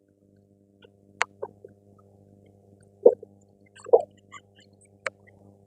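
A few short knocks and clinks of metal tools and suspension parts being handled, two sharp clinks and two duller thuds, over a steady electrical hum.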